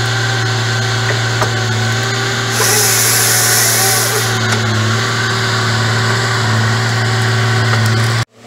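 Diesel engine of a Fabtek FT-133 tracked harvester running steadily under load as its processing head works a pine log, with a burst of high hiss from the head about two and a half seconds in. The sound cuts off abruptly just before the end.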